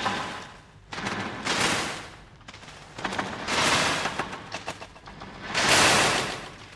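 Experimental electroacoustic studio music: surges of harsh, crackling noise swell and fade again roughly every two seconds, with no voice.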